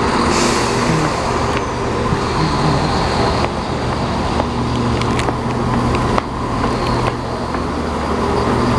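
Southern Class 171 Turbostar diesel multiple unit running slowly alongside the platform close by: a steady diesel engine drone with scattered sharp clicks.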